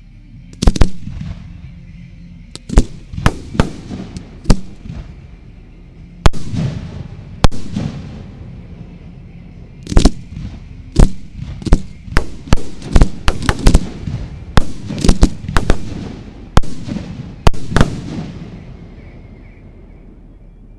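Aerial fireworks bursting in a long series of sharp bangs, each trailing off in an echo. The bangs come thickest from about ten to eighteen seconds in, then stop.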